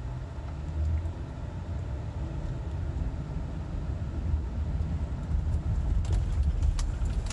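Low, steady rumble of a car heard from inside its cabin, with a few light clicks near the end.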